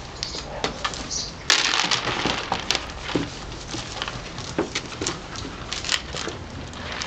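Portuguese Podengo Medio puppies scrabbling and tussling in a plastic turtle-sandbox lid: claws scratching and clicking on the hard plastic, with a louder scrape of about a second starting about a second and a half in as the shell is jostled.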